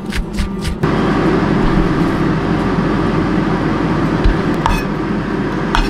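Kitchen knife chopping green onions on a wooden cutting board in quick even strokes, about five a second, stopping abruptly less than a second in. Then a steady low rumbling hum with a few light knocks as the chopped scallions are moved into a steel bowl.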